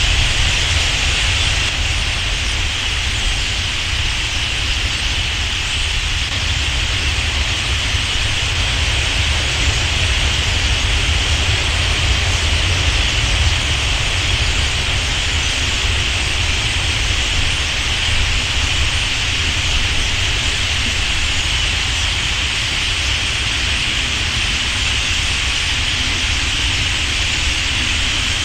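Massed chatter of a large common starling roost in a reed bed at dawn, ahead of the birds' mass take-off. Thousands of overlapping calls blend into a steady hiss-like wash, high in pitch and unchanging throughout, with a low rumble underneath.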